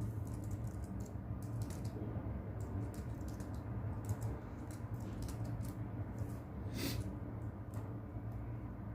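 Typing on a keyboard: irregular key clicks, some in quick runs, over a steady low brown-noise rumble.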